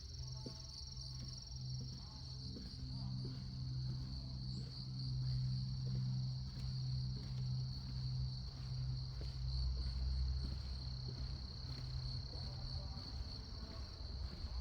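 Chorus of insects, crickets among them, keeping up a steady high-pitched trilling, with a low steady hum underneath.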